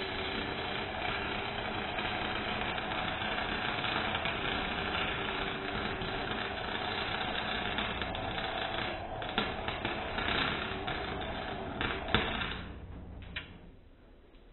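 Electric arc welder crackling and buzzing steadily while a weld is run, with a couple of brief breaks in the arc, then stopping near the end.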